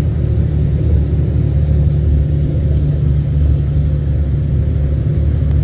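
Diesel engine of an Iveco truck-bus running as it drives over a wet gravel road, a steady low rumble.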